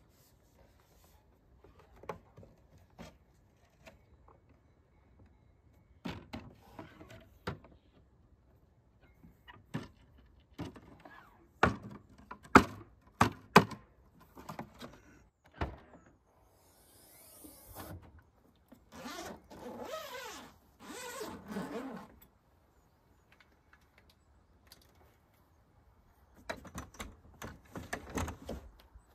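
A folding aluminium camping table being folded up: a series of metal clicks and clacks as its legs and latches snap shut, loudest about halfway through. A few seconds of scraping and rustling follow, then more clatter near the end as gear is handled at the van's tailgate.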